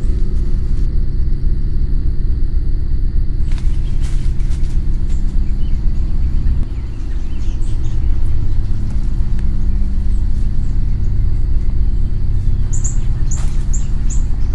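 Loud, low, steady drone of dark horror-film score, a rumble of held low notes. A few short bird chirps come near the end.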